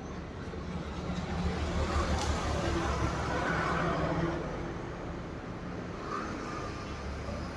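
Steady low hum of an electric potter's wheel spinning, with a broad rushing noise that swells and then fades over the middle few seconds and a single sharp click about two seconds in.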